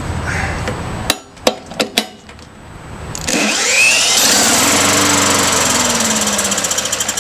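A few sharp clicks as a ball valve on the vapour line is turned. Then a power drill on the flywheel nut spins a 4.5 hp lawn mower engine rigged to run on diesel vapour from an ultrasonic transducer. The loud whine rises and then falls, and near the end the engine starts firing in quick, uneven pulses.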